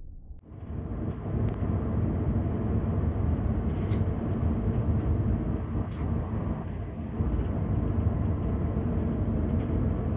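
Steady running rumble of a TCDD high-speed train heard from the driver's cab, starting abruptly about half a second in. Two short, sharp clicks stand out, near the middle and a couple of seconds later.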